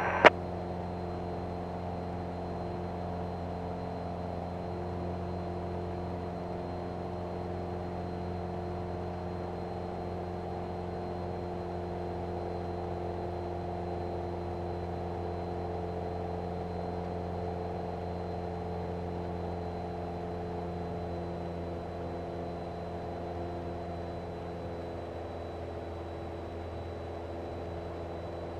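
Light single-engine airplane's engine and propeller droning steadily, heard from inside the cockpit, with a faint thin high whine above it. The drone eases slightly about three-quarters of the way through.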